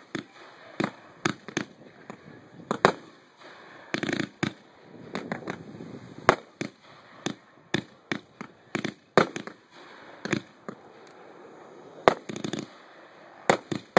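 Consumer firework cakes firing: an irregular string of sharp bangs from aerial shells bursting overhead, a few a second. Denser clusters of crackling reports come about four seconds in and again near the end.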